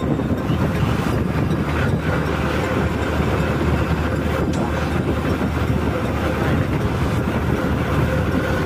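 Motorcycle running steadily at road speed, a constant engine hum mixed with wind and road noise.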